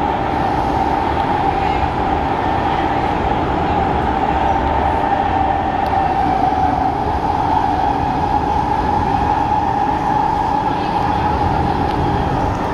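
Interior running noise of an SMRT C151 metro train between stations: a steady rumble of wheels on rail with a constant mid-pitched whine over it.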